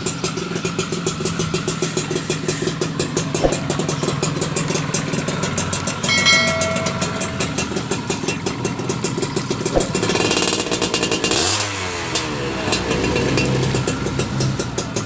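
Yamaha F1ZR's two-stroke engine idling with a rapid, even exhaust pulse, blipped once about ten seconds in before settling back.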